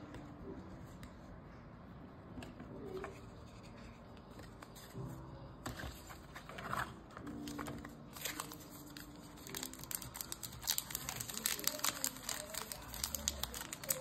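A trading-card pack wrapper being torn open and crinkled by hand. The crackling is sparse at first and becomes dense and louder over the last several seconds.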